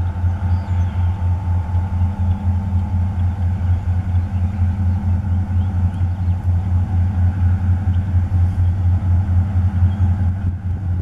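Diesel-electric freight locomotive running as it approaches slowly, a steady deep rumble with a faint hum.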